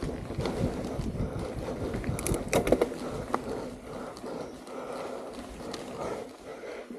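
Mountain bike rolling fast down a dirt singletrack: knobby tyres on packed dirt and the bike rattling over bumps, with a burst of clattering knocks about two and a half seconds in, then smoother, quieter rolling.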